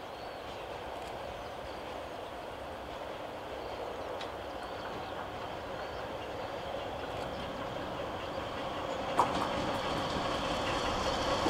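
A train hauled by a Chichibu Railway Deki electric locomotive approaching, its rumble and wheel noise growing steadily louder, with one sharp click about nine seconds in.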